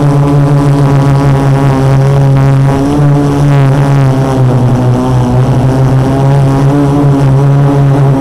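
Quadcopter's four Multistar 2212 920kv brushless motors spinning 12-inch carbon fibre props in flight, a loud steady buzzing hum heard from a camera mounted on the frame. The pitch wavers a little around the middle.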